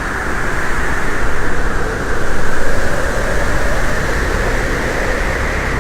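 Avalanche roaring as its snow cloud rushes past: a loud, steady rushing roar with a deep rumble underneath, swelling about two seconds in.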